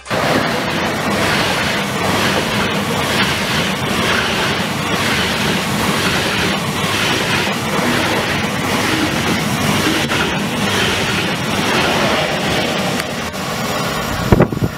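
Deutsche Bahn ICE high-speed train passing close at speed: a loud, steady rush of air and rail noise with a regular clatter of wheels. It eases slightly near the end, followed by a couple of sharp thumps.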